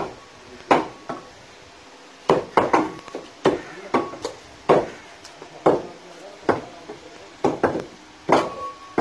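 Several meat cleavers chopping the meat of a freshly sacrificed animal on wooden chopping blocks: irregular sharp chops, roughly two a second, some followed by a brief metallic ring.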